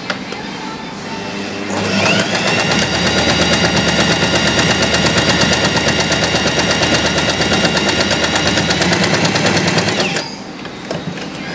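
Usha Janome Excella electric sewing machine running at a steady speed for about eight seconds, stitching cloth-covered piping with a straight stitch. Rapid, even needle strokes ride over a motor whine that rises as it starts and winds down as it stops.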